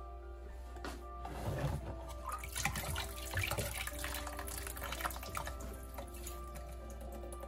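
Water pouring and dripping from a terracotta pot of orchid bark as it is lifted out of a basin of soaking water, starting about a second in and tailing off near the end, over soft background music.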